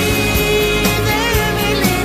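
A melodic rock song plays, with singing over the band and a long note held with vibrato through most of it.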